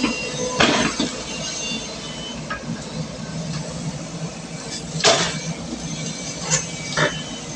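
Excavator engine running steadily, with several sharp knocks of the machine working; the loudest comes about five seconds in.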